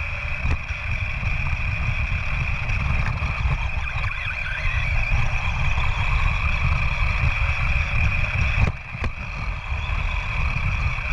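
A running RC car heard through a camera mounted on it: a steady high whine over a low rumble of vibration and wind on the microphone. The rumble briefly drops out with a couple of sharp knocks about nine seconds in.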